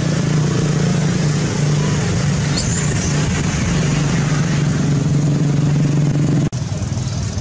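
A steady low engine-like hum over background noise, with a brief high squeak about two and a half seconds in. The sound drops out for an instant near the end.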